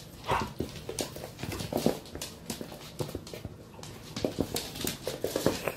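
A puppy and an older dog playing and chasing on a hard floor: claws clicking and scrabbling in quick irregular steps, with a few brief dog vocal sounds.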